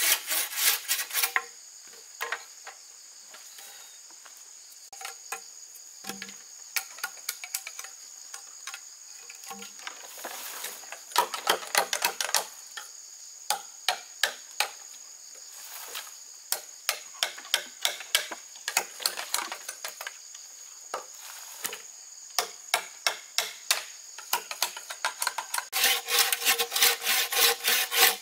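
Hand sawing in quick, rapid strokes at the start and again near the end, with sparser scraping strokes in short clusters between. A steady, high-pitched insect drone runs underneath.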